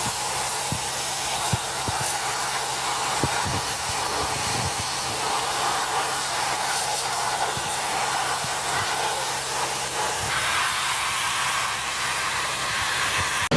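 A steady, even hiss with a few faint clicks, cut off abruptly near the end.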